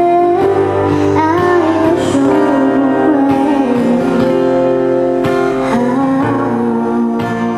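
A woman singing into a microphone over an acoustic guitar, her melody held on long notes that slide between pitches.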